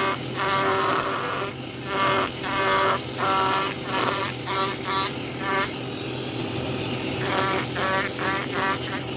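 Small electric carving tool buzzing over a steady motor hum, cutting into wood in short repeated passes about twice a second.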